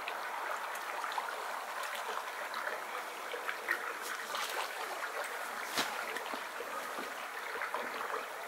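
Shallow river running steadily over a riffle: a light, even babble with scattered small clicks and splashes, and one sharper click about six seconds in.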